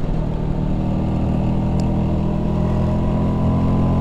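Vespa P150S scooter's two-stroke single-cylinder engine running at a steady pace while riding.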